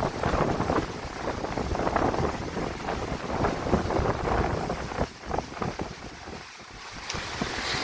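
Strong wind buffeting the microphone in gusts over surf breaking on a beach. The wind eases briefly about five seconds in, and the rush of the surf rises near the end.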